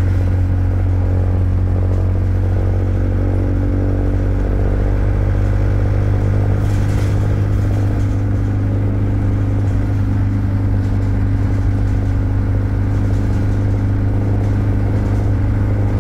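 Bus engine running steadily at cruising speed, heard inside the passenger saloon as a loud, even low drone. A short hiss comes about seven seconds in.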